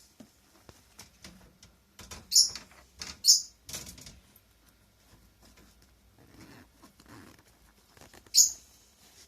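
Netherland Dwarf rabbit sneezing three times, short sharp high-pitched sneezes, two close together about two seconds in and one near the end, with light rustling and pattering of the rabbit moving between them. The sneezes are a sign of snuffles, a respiratory illness the rabbit has had before.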